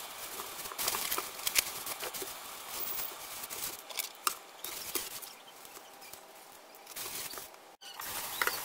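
Thin plastic produce bags crinkling and rustling as they are handled, with sharp crackles in the first few seconds and softer rustling after.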